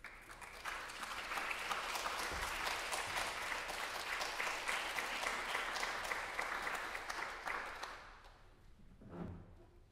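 Audience applauding, swelling in about a second and fading out about eight seconds in. Near the end, a couple of soft low thumps.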